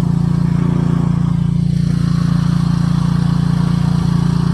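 An engine running steadily at an even speed, with a strong low hum.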